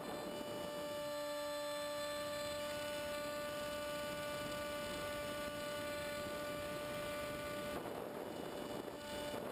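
A model plane's electric motor whining at one steady pitch, with several even overtones over a light rush of air. Near the end the air rush swells back and the whine mostly fades.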